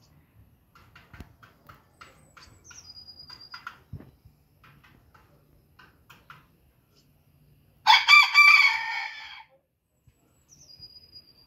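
Booted bantam rooster crowing once, a short loud crow about eight seconds in lasting about a second and a half. Before it, soft clucking from the flock, and twice a thin high whistle.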